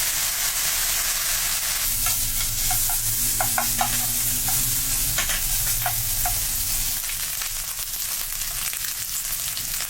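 Diced bacon sizzling in a pan as its fat slowly renders out, a steady frying hiss with a few sharp pops and crackles in the middle.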